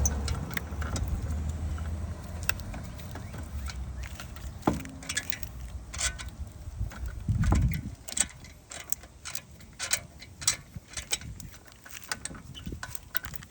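Metal hardware and tools being handled on a car's wheel hub: scattered clinks and knocks, with a low rumble in the first couple of seconds and a heavier thump about halfway.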